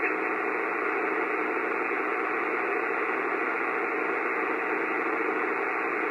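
Steady static hiss from a Kenwood R-1000 shortwave receiver tuned to 10028 kHz, the frequency where a faint, fast-warbling signal nicknamed 'the buzzer' is being listened for.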